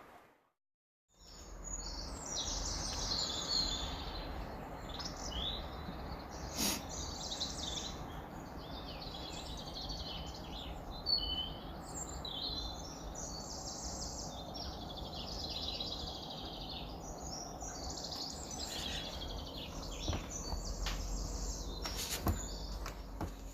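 Small garden birds chirping and singing busily, over a steady low rumble of background noise; the sound starts about a second in after a brief silence, with a few sharp clicks along the way.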